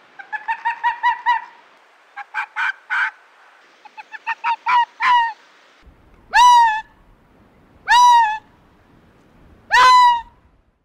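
Arctic fox calling: first a fast run of about eight short yapping barks, then two shorter bursts of yaps, then three longer calls that jump up in pitch and fall away, spaced about one and a half to two seconds apart.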